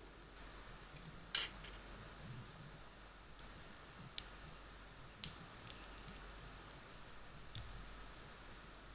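Small hard-plastic toy parts clicking and tapping together as a Kinder Surprise wolf figurine is put together by hand. A handful of sharp separate clicks, the loudest about a second and a half in, with a quick cluster a little past the middle.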